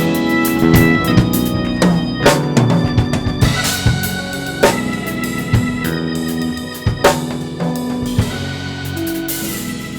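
Gospel church band playing: organ holding sustained chords, with drum kit hits landing every two seconds or so.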